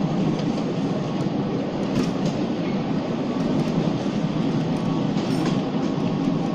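Small tourist train rolling along its track, heard from on board: a steady rumble with a few light clicks.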